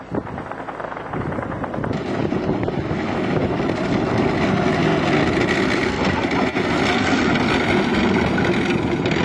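Tracked armoured personnel carrier driving up and passing close, its engine and tracks running. The sound grows louder over the first three seconds, then stays loud and steady.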